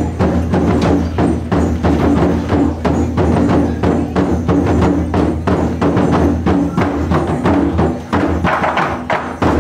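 Fast percussion music, dense with sharp wooden clacks struck several times a second, over steady low tones.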